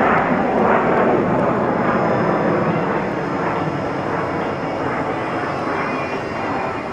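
Jet engine noise of Kawasaki T-4 jet trainers flying by: a broad, steady roar, loudest in the first second and slowly easing off.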